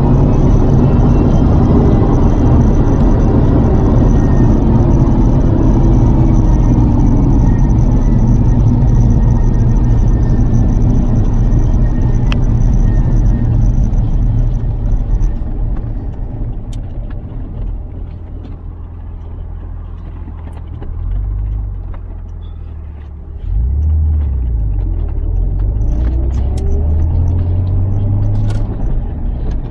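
Lotus Carlton's twin-turbo straight-six and road noise on the move: a heavy, steady rumble that eases off a little past halfway. Near the end the engine pitch climbs again as the car picks up speed.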